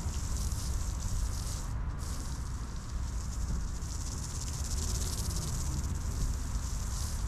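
Water spraying from a garden hose nozzle onto sand, a steady hiss that breaks off briefly about two seconds in.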